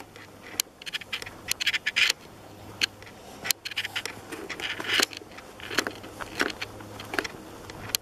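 Footsteps scuffing and crunching irregularly along a dry dirt trail, with brief scraping rustles, over a faint steady low hum.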